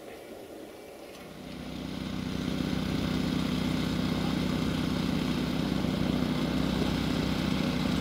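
A locomotive engine running with a steady drone that swells about a second in as the train approaches, then holds loud and even.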